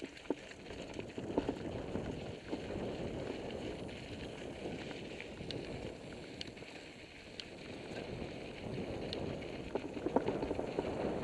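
Mountain bike rolling downhill on a loose gravel trail: tyres crunching over small stones and the bike rattling, with scattered small clicks and ticks.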